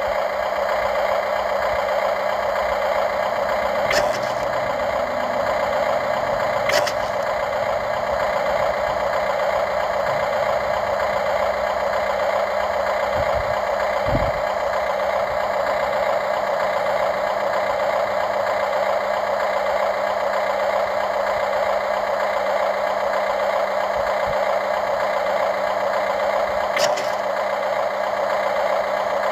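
Radio-controlled model construction machine running with a steady mechanical whine from its motor, with a few sharp clicks now and then.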